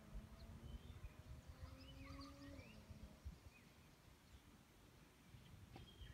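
Faint outdoor ambience: scattered distant bird chirps over a low rumble. A faint steady hum stops about three seconds in.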